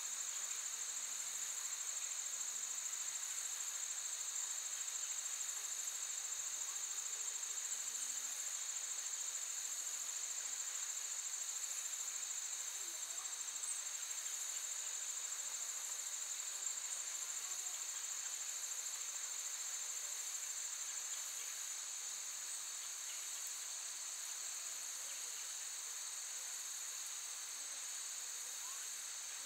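Insects chirring steadily at a high pitch, a continuous trill-like drone that eases off slightly in the last third.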